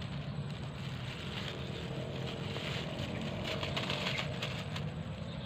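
Thin plastic bag crinkling and rustling in someone's hands, densest from about a second and a half in to near the end, over a steady low rumble.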